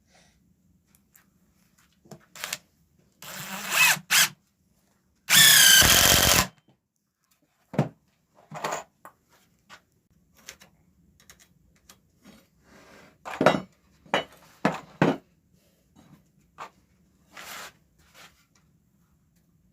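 Cordless drill driving screws into wood in two short runs, about three and five seconds in; in the louder second run the motor's pitch drops as it loads. Scattered knocks and clatter of wood being handled fill the rest.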